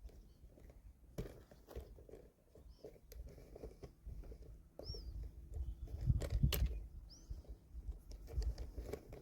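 Footsteps on rough ground with irregular crunches and handling clicks over a low rumble, loudest about six seconds in. A few short high chirps come through in between.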